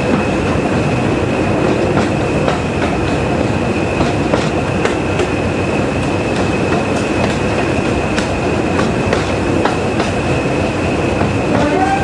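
Train hauled by a pair of English Electric Class 20 diesel locomotives running along the line, heard from aboard. Steady running noise carries a high steady whine and irregular clicks of wheels over rail joints, with a brief wavering squeal near the end.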